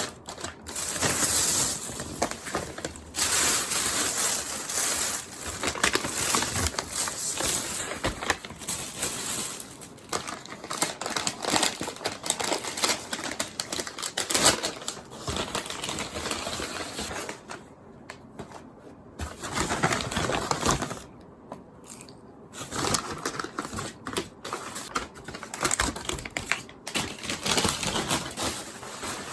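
Close, dense rustling and crinkling with many small clicks and taps, broken by a few short quieter gaps.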